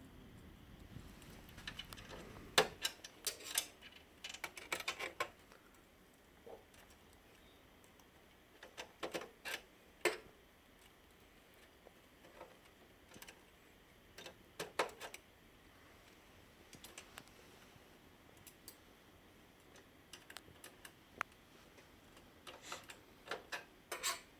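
Scattered sharp clicks and taps of laser printer parts being handled and fitted during disassembly, coming in short clusters with quiet gaps between them.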